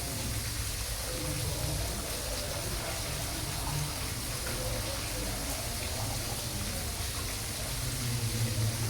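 Steady rush of aquarium water, with faint, indistinct voices underneath.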